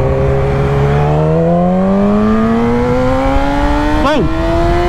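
Yamaha R6's inline-four engine pulling away under throttle, its pitch climbing steadily as the bike accelerates. Near the end the note briefly swoops down and back up.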